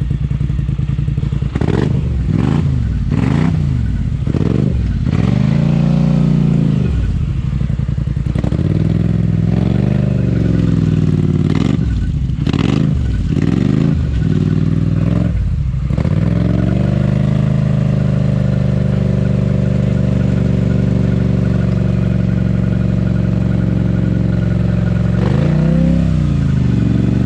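Polaris ATV engine revving repeatedly, its pitch climbing and falling over and over, then held at a steady speed for several seconds before revving up and down again near the end.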